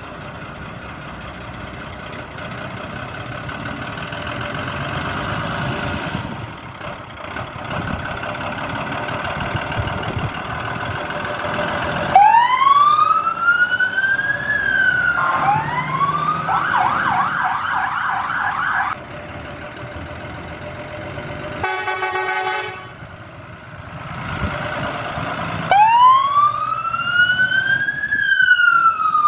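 Fire trucks' diesel engines running as they pull out. About twelve seconds in, a fire engine siren starts with a rising-and-falling wail, then a stretch of fast yelp. A short horn blast follows, and the wail returns near the end.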